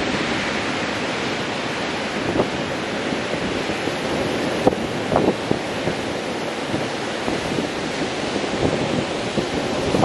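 Heavy surf breaking and washing in, a steady wash of white water. Wind gusts buffet the microphone a few times, at about two and a half and five seconds in.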